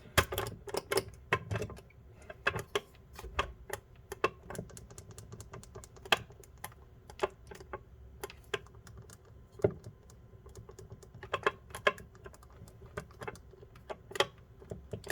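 Irregular sharp clicks and clacks of a Master Lock Bluetooth portable lockbox being handled, just after its shackle has been locked, over a faint steady hum.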